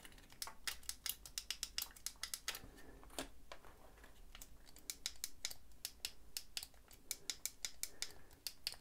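Shimano Dura-Ace 9070 Di2 lever shift buttons pressed over and over: a run of small, irregular clicks, several a second. No derailleur motor answers, because the system's battery has no charge.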